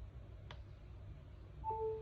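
A single sharp click, then near the end a short electronic beep: two steady tones an octave apart sounding together, the higher one stopping first.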